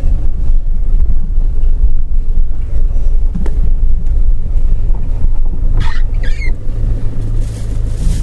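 A vehicle engine running steadily as it is driven in low gear, with wind buffeting the microphone.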